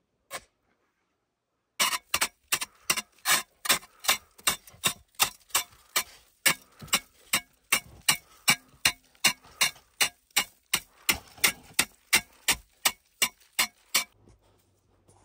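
A hatchet chopping into the packed-snow inner wall of an igloo: a long run of sharp strikes, about two or three a second, that stops near the end.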